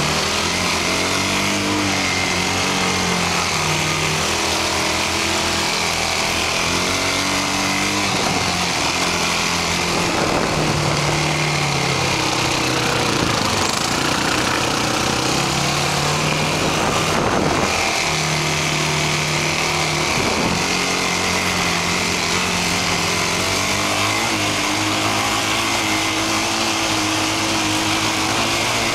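Side-by-side UTV engines running across sand, the revs rising and falling again and again, with a steady high whine throughout. A rush of noise covers the engines for several seconds around the middle.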